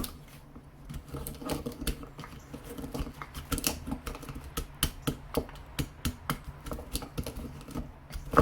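Pestle pounding ginger, cloves and cinnamon in a mortar: quick, irregular knocks, several a second, as the spices are crushed.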